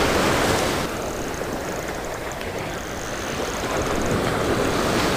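Surf washing onto the beach, louder in the first second and then easing, with wind on the microphone. A spinning reel is cranked in under it, a faint high whir from about a second in.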